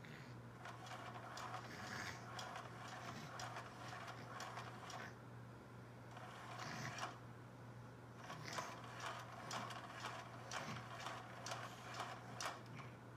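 Battery-powered interactive cat toy (Active Purr mouse toy) running: its small motor and gears whir with irregular clicks and ticks, thicker in the second half, over a low steady hum.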